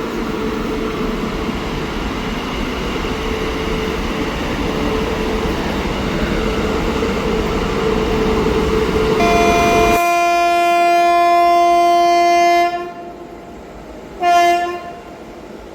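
A passing train rumbles loudly and steadily, then the rumble cuts off suddenly. A diesel or electric locomotive's air horn sounds one long blast of about three seconds, and about a second and a half later gives one short toot.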